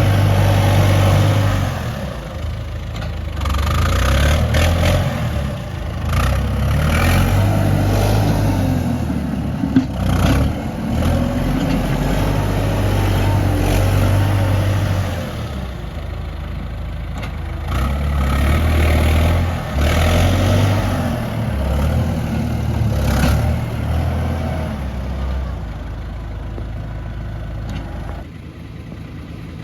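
Heavy diesel engine of earthmoving machinery working, its note rising and falling again and again as the load comes and goes, with a few sharp knocks, the loudest about ten seconds in.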